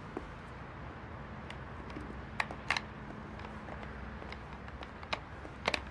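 High-heeled shoes clicking on paving as a woman walks, a sharp click about every half second, over a faint steady hum.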